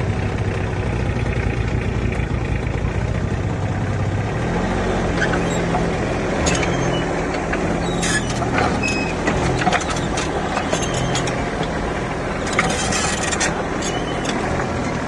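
Mini excavator's diesel engine running steadily, picking up speed about four seconds in, with scattered metallic clicks, short squeaks and a brief hiss from the working machine.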